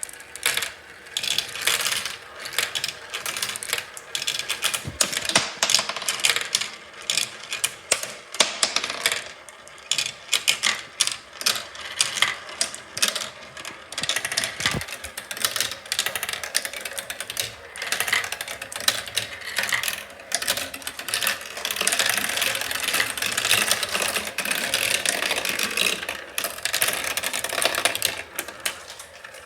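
Marbles rolling and clattering along a marble run: a dense, continuous stream of small clicks and rattles, busiest for a few seconds past the two-thirds mark.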